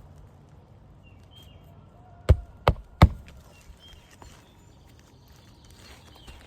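Three quick hammer blows driving a roofing nail through an asphalt shingle, a few tenths of a second apart, about two seconds in.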